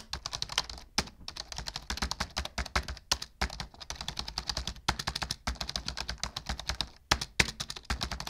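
Typing on a computer keyboard: rapid, uneven keystrokes with a few brief pauses, as code is entered.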